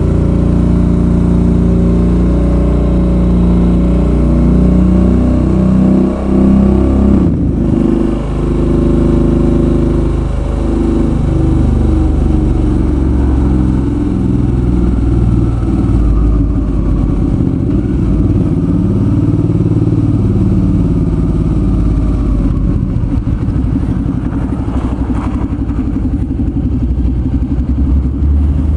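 Suzuki V-Strom 650's V-twin engine pulling on the move: its pitch climbs, drops and climbs again through gear changes, with a brief let-off of the throttle about seven seconds in.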